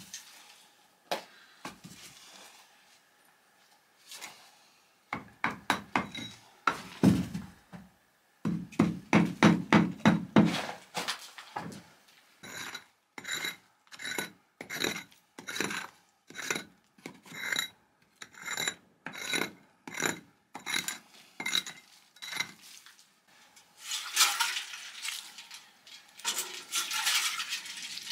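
Scraping and knocking of a hand tool against old brick, mortar and rubble, as the brickwork of an old chimney is pried apart and cleared out. There are a few knocks, then a run of heavier strokes, then a long series of evenly spaced scrapes a little faster than one a second, and a stretch of dense scraping near the end.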